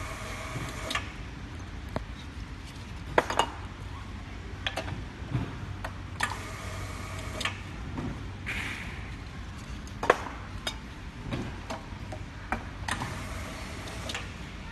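Semi-automatic round-bottle labeling machine at work on metal aerosol cans. There are sharp metallic clicks and clanks every second or two as cans are loaded and the handle is worked, over a steady low motor hum, with short spells of whirring while a can is rolled and labeled.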